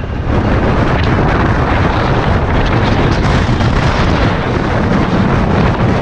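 Heavy wind buffeting a GoPro's microphone: a loud, deep, continuous rush of wind noise.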